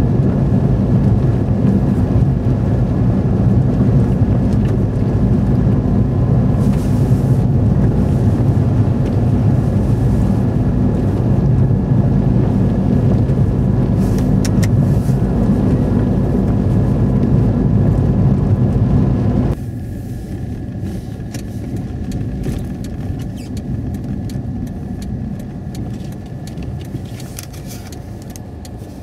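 Car engine and tyres on a snow-covered road heard from inside the cabin, a steady low rumble. About two-thirds of the way through it drops suddenly and stays quieter, as the engine comes off load.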